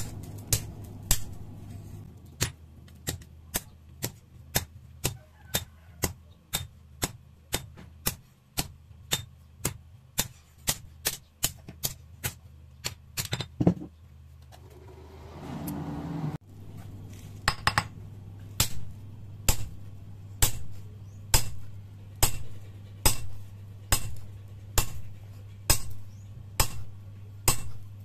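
Hand hammer striking a red-hot leaf-spring steel blade on an anvil while forging a machete: ringing metal blows about two a second. The blows stop for a couple of seconds about halfway through, then resume at the same pace, over a steady low hum.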